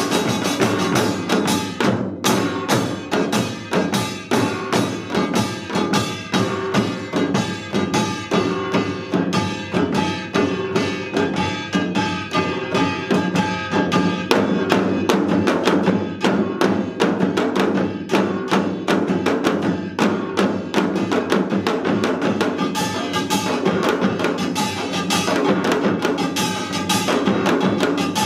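Seated Utdari samul nori ensemble playing together: kkwaenggwari small gongs, janggu hourglass drums and buk barrel drums striking a fast, dense rhythm, with a brief break about two seconds in.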